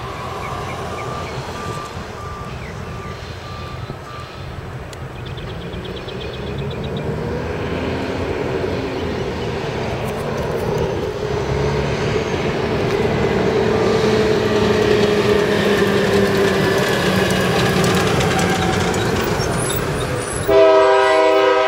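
Diesel freight locomotives and a heavy road vehicle approach with a building engine rumble. About twenty seconds in, a loud multi-note chord horn starts to blow: a locomotive air horn, a Nathan K5LA. A faint beeping repeats in the first two seconds.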